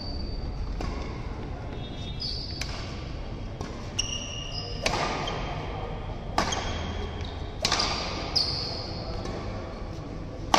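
Badminton rally: racket strings striking the shuttlecock with sharp cracks every second or so, ringing in a large hall, with short high squeaks of court shoes on the mat between hits and a steady low hum beneath.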